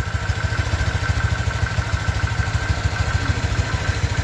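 Honda Vario 125 scooter's single-cylinder four-stroke engine idling steadily, an even run of rapid low firing pulses with a faint steady high tone over it. At about 1,000 km the owner finds it running smoother.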